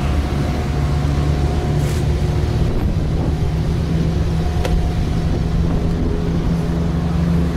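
An engine running steadily nearby: a low, even hum with a faint higher tone over it, and a couple of light clicks.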